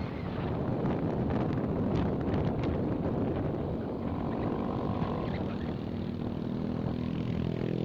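Motorcycle engine running steadily at road speed, with wind rushing over the microphone.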